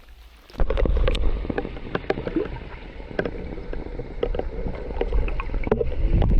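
Water splashing and sloshing with irregular knocks against a small boat, starting suddenly about half a second in, over a heavy low rumble on the microphone.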